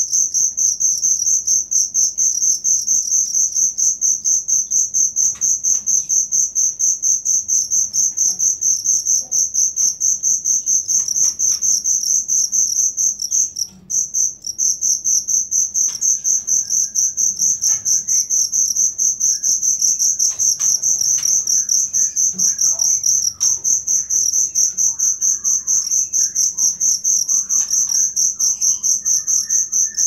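A cricket chirping in a fast, even, high-pitched pulse that breaks off for about a second in the middle.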